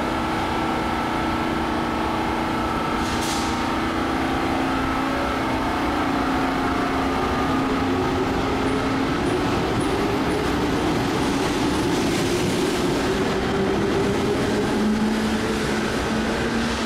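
Electric metro train pulling out of a station: the traction motors whine, rising slowly in pitch as it gathers speed. A brief hiss comes about three seconds in.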